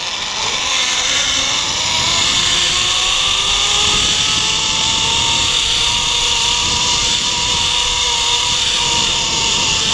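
Zipline trolley pulleys running along the steel cable: a steady rushing whir with a thin whine that rises in pitch over the first few seconds as the rider picks up speed, then holds. Wind buffets the microphone underneath.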